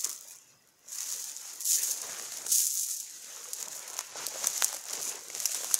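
Dry rustling and crackling, a string of short crackles over a high hiss, with a brief lull just after it begins.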